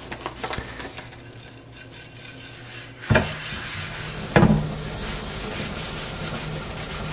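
Sea salt shaken onto a wet wooden cutting board with a faint crackle, then scrubbed into the board with a scrubbing pad: a steady gritty rubbing from about three seconds in, with a couple of knocks.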